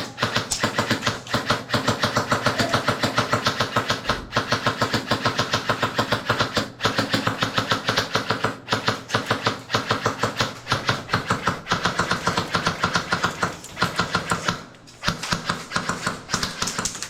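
Airsoft electric gun firing long full-auto bursts: a rapid, even rattle of shots with a few brief breaks between bursts, the longest a little before the end.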